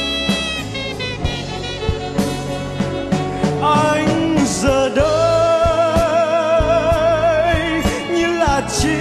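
Live band playing an instrumental break between sung verses: drum kit hits under a band backing, with a held, wavering lead melody coming in about four seconds in.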